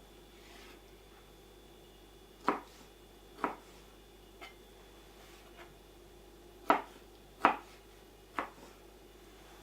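Kitchen knife chopping fruit on a cutting board: a handful of separate sharp knocks at uneven intervals, two of the loudest close together about two-thirds of the way in.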